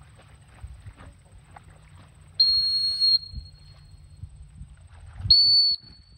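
A handler's dog training whistle blown twice at a swimming retriever: a long, high, steady blast, then a second, shorter one a few seconds later.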